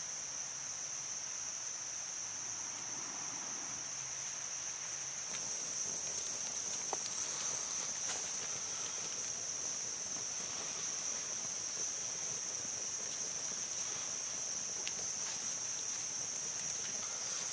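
Steady high-pitched chorus of insects, with faint scattered crackles from the burning resin-soaked pine-cone torch starting about five seconds in.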